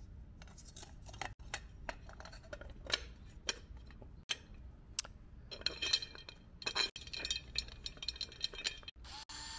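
Parts of a landscape path light clicking and clinking as its shade and top cap are fitted back together by hand, in scattered light knocks. Two short scraping sounds come about six and seven seconds in.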